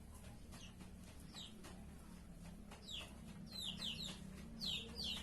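Birds chirping: short, high, falling chirps, a few at first and then more often, in quick pairs, in the second half, over a faint low steady hum.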